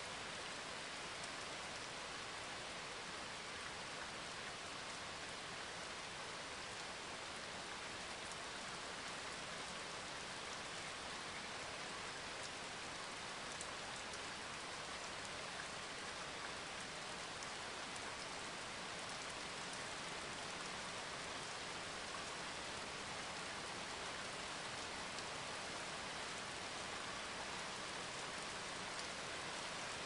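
Steady rain falling: an even hiss with a few faint drop ticks.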